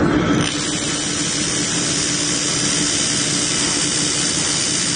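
Handheld fiber laser welder working: a steady hiss that sets in about half a second in and holds, over a steady low hum.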